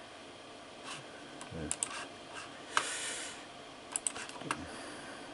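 Scattered light clicks and taps from a computer keyboard, coming singly and in quick pairs, with a short breathy hiss about three seconds in.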